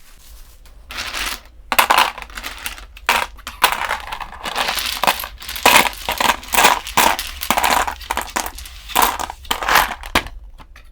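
A pile of toy dominoes clattering as they are packed into a storage box: many overlapping clicks and knocks, some in quick runs.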